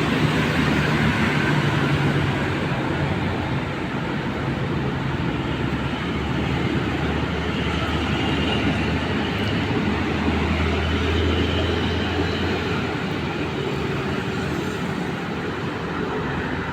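Road traffic passing steadily, engine and tyre noise, with a deep engine hum from a heavy vehicle loudest about ten to twelve seconds in.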